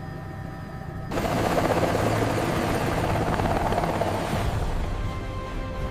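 Helicopter rotor noise: a loud rush that comes in suddenly about a second in and fades away by about four and a half seconds, over a low steady hum.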